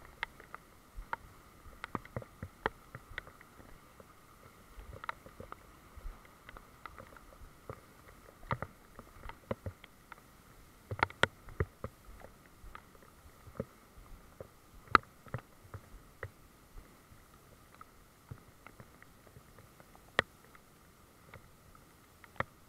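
Scattered sharp taps and clicks at irregular intervals over a faint steady hiss.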